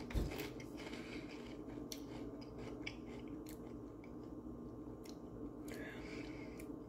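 A person chewing a mouthful of potato chip with her mouth closed: faint crunches at irregular intervals, with a firmer bite right at the start.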